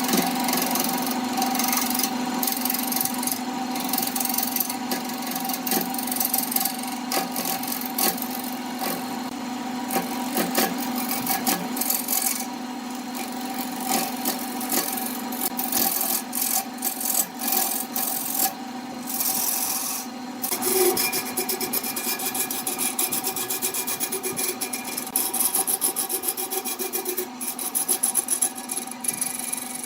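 Wood lathe running with a steady hum while a turning tool scrapes and cuts the spinning wood in uneven strokes.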